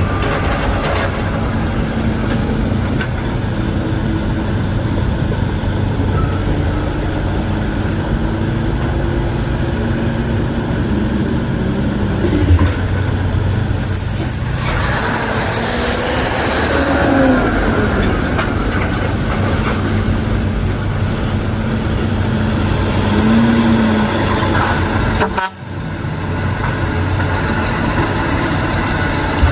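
Heavy diesel engine running steadily, its pitch shifting a little now and then. The sound briefly drops out about 25 seconds in.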